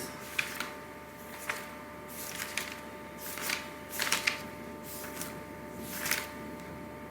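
A steady low electrical hum with faint fixed tones, and a handful of short, sharp clicks or taps scattered through it, the strongest cluster about four seconds in.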